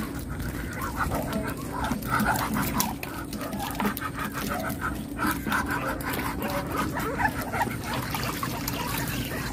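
An animal's short calls, repeated many times, over a steady low background hum.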